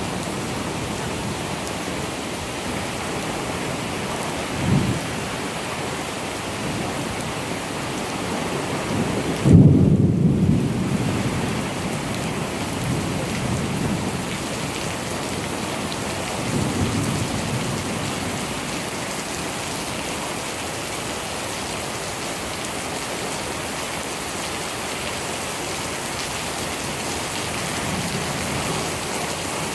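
Steady heavy rain with thunder rumbling four times. The loudest, sharpest clap comes about ten seconds in, followed by a rumble that fades over a couple of seconds.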